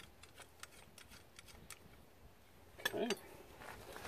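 Light metallic clicks and clinks of a steel telescoping stabilizer bar and its bolt being handled and the bolt started by hand at a tractor's three-point hitch. A louder clatter comes about three seconds in, followed by shuffling handling noise.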